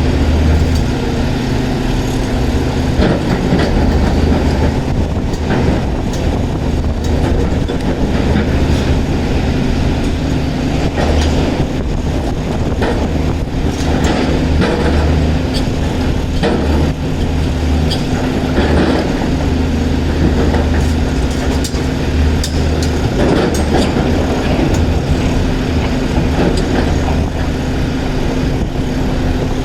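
Caterpillar 336 excavator's diesel engine running steadily under load, with irregular knocks and clatter of rock being dug and loaded.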